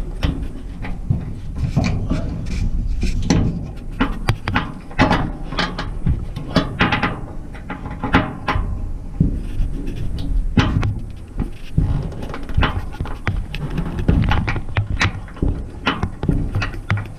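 Irregular metallic clicks and knocks from a wrench working on bolts in a dryer's sheet-metal cabinet, tightening loose panel bolts, over a low rumble.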